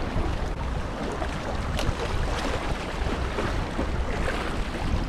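Wind buffeting the microphone in a steady low rumble, over small waves washing and splashing against shoreline rocks.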